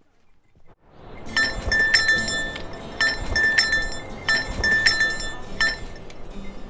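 Small jingle bell clipped to a hiker's trekking pole, ringing in short clinks two or three at a time with the strides, over shuffling footsteps on the trail. It starts about a second in.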